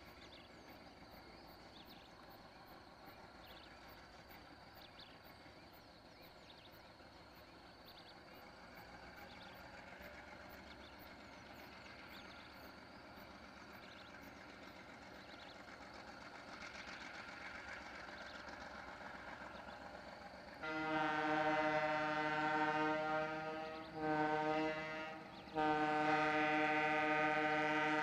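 Distant freight train running faintly, then its locomotive horn sounding loudly three times, long, short, long, the last blast still going at the end.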